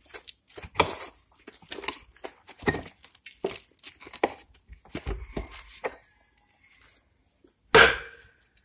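Irregular knocks and splintering cracks as a cut cork-oak stump is worked apart along its split, then one loud sharp strike with a brief ringing tail near the end as an axe is driven into the crack.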